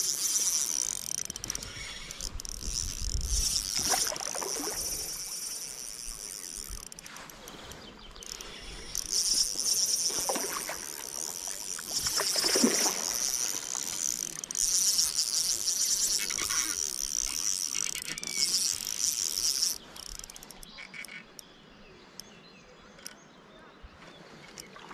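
Spinning reel on an ultra-light rod whirring and clicking in bursts of several seconds as a hooked trout is played and reeled in. It stops sharply near the end, and a few louder knocks come in between.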